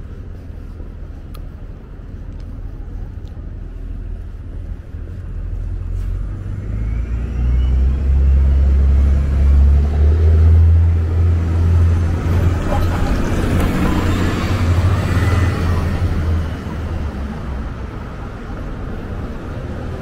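Road traffic at a city intersection: a low rumble throughout, with vehicles including an SUV and a city bus growing louder and passing from about a third of the way in, loudest near the middle, then fading.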